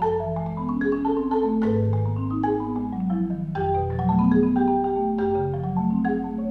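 Solo marimba played with four mallets: low bass notes ringing long under a steady stream of higher notes. Every stroke is struck hard, so it sounds like the bars are being slammed.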